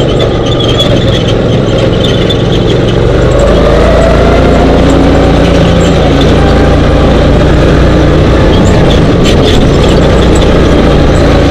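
Dune buggy engine running loud and steady as it drives over a sandy trail, recorded from on board, its note swelling up and back down a few seconds in.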